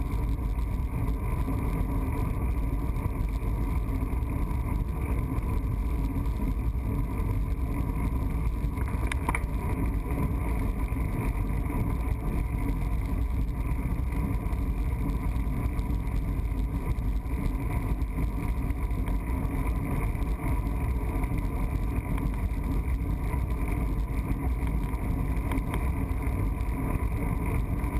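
Steady low rumble of wind buffeting the microphone of a camera mounted on a road bicycle's handlebars while riding, mixed with tyre noise on asphalt. A single brief click about nine seconds in.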